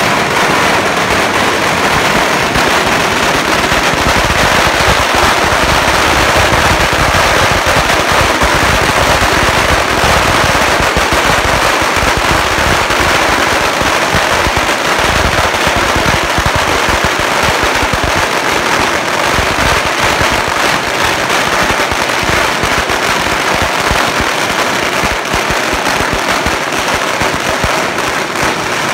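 Long hanging strings of red firecrackers going off in a loud, dense, unbroken rattle of rapid bangs.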